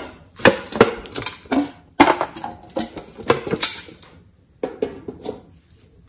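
A quick run of sharp crackling clicks and pops from hands working glossy slime and a clay block in a glass tray. It thins to a few scattered clicks after a short pause near the end.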